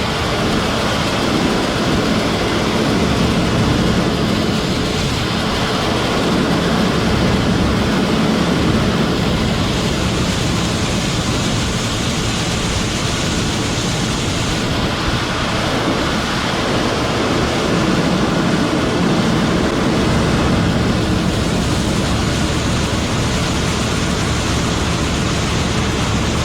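Heavy farm machinery running steadily under harvest work: a loud, even rumble and hiss with a faint steady hum.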